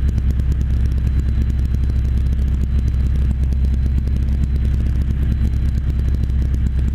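Engine and propeller of an APM 20 Lionceau light aircraft, a Rotax 912 flat-four, running at a steady cruise setting, heard from inside the cockpit as a loud, even drone.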